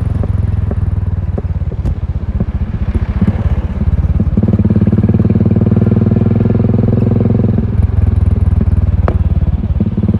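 Royal Enfield Continental GT 535's single-cylinder engine running through an aftermarket exhaust, a rapid even pulse of exhaust beats. It grows louder and fuller from about four seconds in, then eases back near eight seconds.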